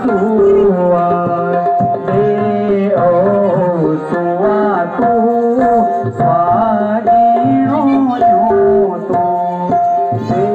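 A Garhwali mangal geet (auspicious wedding song) performed with harmonium and tabla: a singer's ornamented melody over held harmonium notes, with tabla strokes running throughout.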